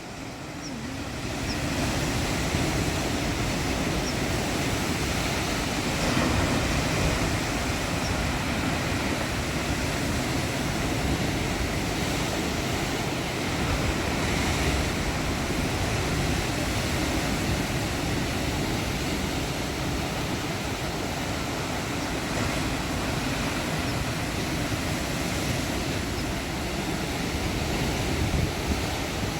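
Sea waves washing and breaking on a rocky shore, a continuous surf that fades in over the first couple of seconds and then swells and eases every several seconds.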